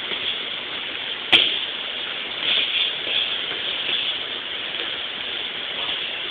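Steady din of spectators around a kickboxing ring, heard through a mobile phone's microphone, with a few brief swells and one sharp knock about a second in.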